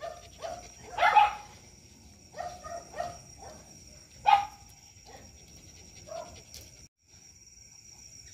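Small dog barking: a handful of short barks at uneven intervals, the loudest about a second in and again about four seconds in.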